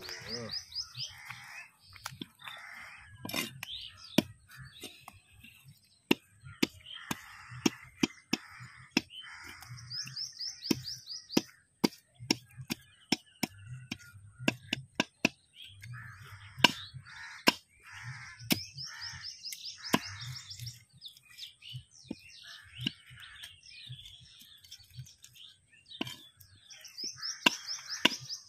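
A large knife chopping fish on a wooden chopping block: sharp knocks at an irregular pace, about one to two a second and thickest in the middle, with scraping of the blade and flesh between strokes. A bird's short high trill repeats now and then.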